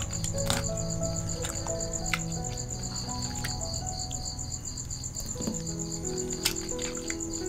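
A cricket chirping steadily in rapid, even pulses, over soft background music of held notes, with a few light clicks.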